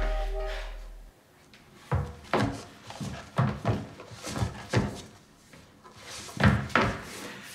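A music cue dies away in the first second, then a run of irregular knocks and thumps on a hard floor, often in pairs: footsteps coming down a hallway.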